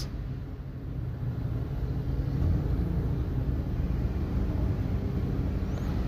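A steady low rumble with no distinct events; no spoon or glass clinks stand out.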